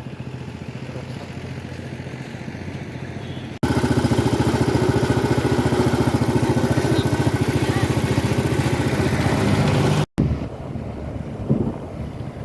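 Vehicle engine running, heard across cut-together clips. It becomes much louder and close-up with a fast even pulse about three and a half seconds in, cuts out briefly near ten seconds, then goes on more quietly.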